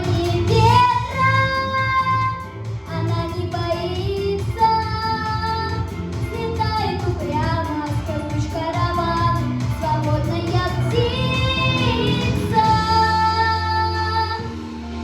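A girl singing a song in a high, clear voice over a steady backing track, with held notes that bend in pitch. Near the end the voice stops and the accompaniment carries on alone.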